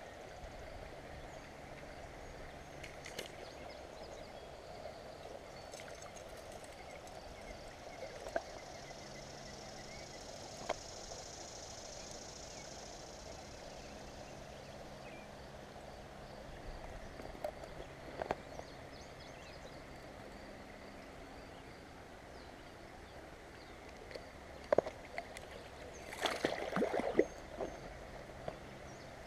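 Steady rush of flowing creek water, with a few sharp clicks and a short cluster of knocks and rustles from handling near the end.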